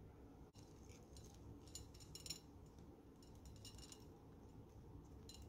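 Faint crisp ticking and rattling of sugar sprinkles being shaken out onto a ceramic plate, in a few short spells.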